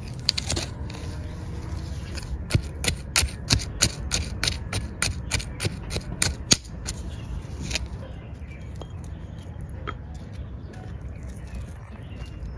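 A small hand trowel digging into hard, stony garden soil: a quick run of scraping stabs at about three a second for several seconds, then quieter rustling of soil as it eases off.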